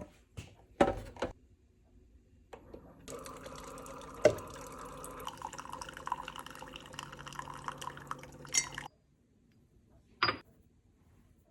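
Liquid pouring steadily into a cup for about six seconds, with a sharp knock about a second after the pour begins. A few handling clicks come before it, and one more click follows.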